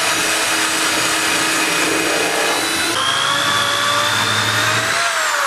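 A cordless drill bores a pilot hole into a pine 2x4. About three seconds in, a corded drill takes over, drilling the countersink with a steadier whine that rises slightly and then falls near the end.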